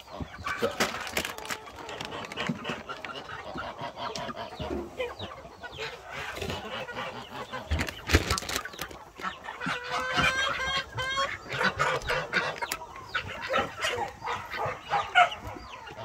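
A flock of Black Ameraucana chickens clucking and calling at feeding time, with scattered clicks and rustles and a single thump about eight seconds in.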